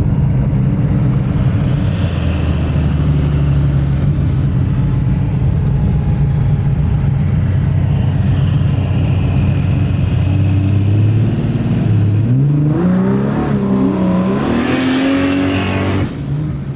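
Barra inline-six engine of a VL Commodore running at steady revs on a cruise, then revving up and down several times near the end.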